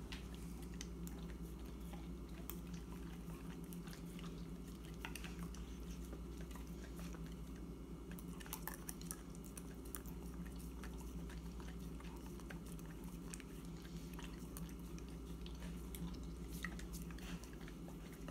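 A husky licking and smacking peanut butter off a metal spoon: faint, irregular wet mouth clicks and chewing sounds over a steady low hum.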